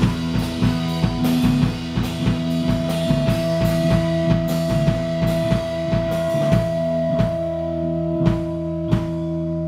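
Live rock band playing an instrumental passage: drum kit, electric guitars and bass, with long held droning guitar notes. The drumming is busy at first and thins out to sparse hits about seven seconds in.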